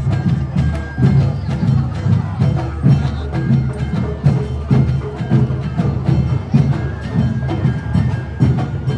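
Awa Odori festival band music: taiko drums beating a quick, steady rhythm, with a small kane gong and other instruments ringing above them.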